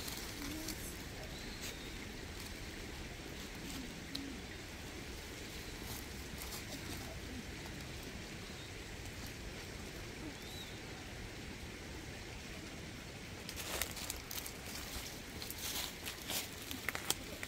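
Steady outdoor hiss with a few faint bird calls. About three-quarters of the way through, a run of rustles and clicks starts as the blanket bundle is handled and set down on the rocky cave floor.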